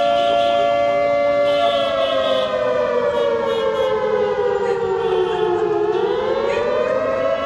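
A loud, sustained siren-like tone with many overtones. It holds steady, slides slowly down in pitch from about two seconds in, then rises quickly back near the end.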